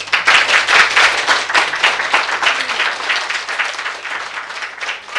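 Audience applauding, starting all at once and strongest over the first couple of seconds, then easing slightly.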